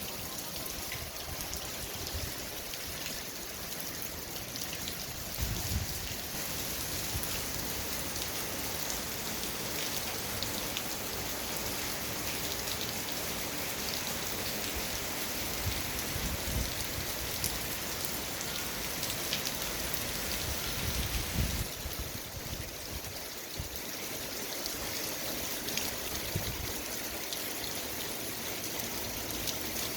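Steady rain falling, with many separate drops ticking on a surface. A few brief low thumps come about 5, 16 and 21 seconds in.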